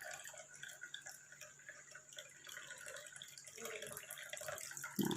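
Warm herbal decoction of cloves, star anise and ginger being poured into a glass: a faint trickling with drips. A short low thud near the end.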